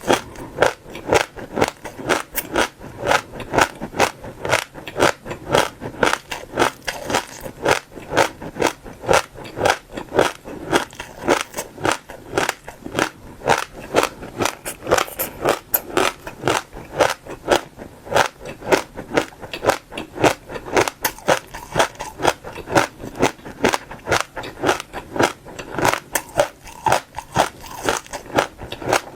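Passion fruit seeds being bitten and chewed close to the microphone. They give a continuous run of crisp, irregular crunches, several a second.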